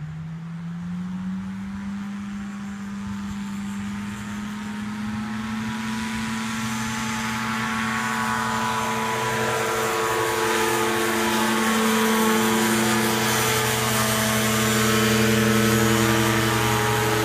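Powered parachute's engine and propeller throttling up, the pitch rising at the start, then running steadily at full power and growing louder as the craft takes off and climbs overhead.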